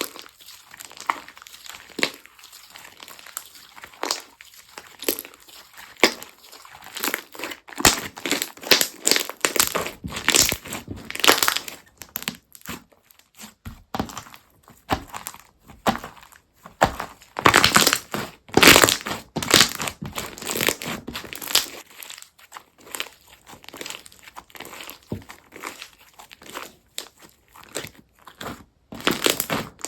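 Slime being squeezed, pressed and stretched by hand, giving a run of crackling, crunchy pops that come thickest and loudest in the middle of the stretch.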